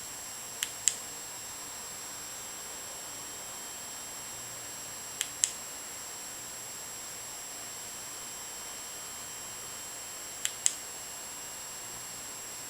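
Three sharp double clicks, each pair about five seconds apart, over a steady hiss with a faint high whine.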